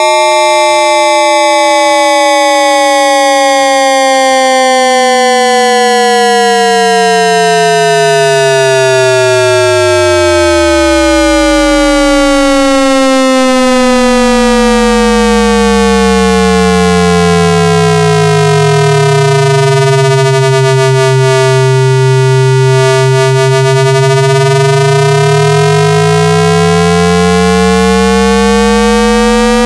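Loud AM radio sound effect: a dense set of whistling electronic tones that slowly slide down in pitch and then climb back up. One low tone sinks out of hearing and another rises up from below.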